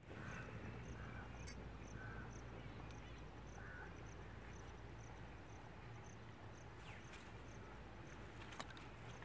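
Faint outdoor ambience with an insect, such as a cricket, chirping steadily at a high pitch about twice a second. A couple of faint sharp clicks sound, one about a second and a half in and another near the end.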